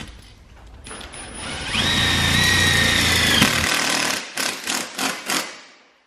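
Cordless drill driving a self-drilling tek screw through steel strut channel into the ceiling framing. The motor runs with a steady whine for about two seconds, stops, then gives a few short pulses as the screw is seated.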